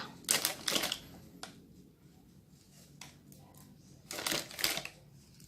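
Two short bursts of crinkly, rustling handling noise about four seconds apart, with a few light clicks between them.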